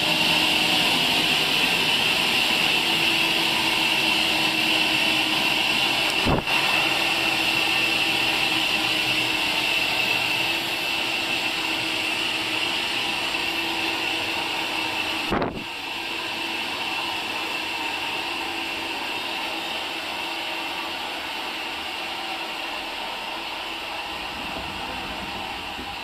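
Horizontal band sawmill running steadily without cutting: electric motor and belt drive with a hissing whine from the blade. Two brief knocks about 6 and 15 seconds in, the second followed by a drop in level, which then eases down slowly.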